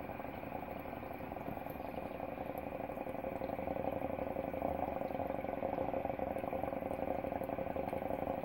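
Steady hum of an aquarium pump, with a few constant tones over a faint wash of noise, growing a little louder partway through.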